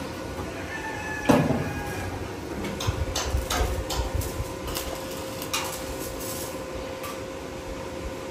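Building-site sounds: scattered knocks and metal clanks over a steady hum, busiest in the middle of the stretch.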